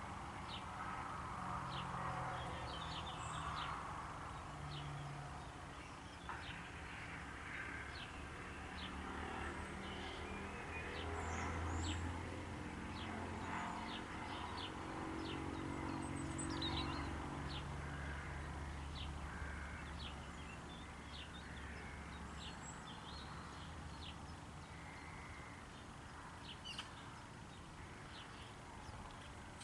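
Birds calling and chirping around a pond: many short, high chirps from several small birds throughout, over a steady low hum.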